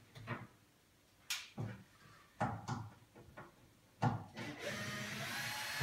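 A few light knocks and taps on wood, then an electric screwdriver running steadily for about two seconds near the end, backing a screw out of the pine wardrobe's back panel.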